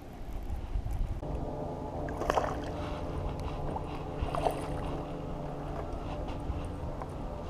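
A boat motor hums steadily from about a second in. Two brief splashy bursts come as a hooked bass is reeled to the surface and lifted out of the water.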